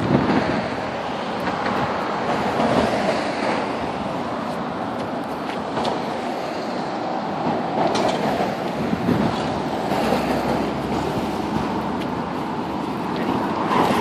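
Road traffic: cars passing on a nearby road, a steady rushing noise that swells a little as each vehicle goes by.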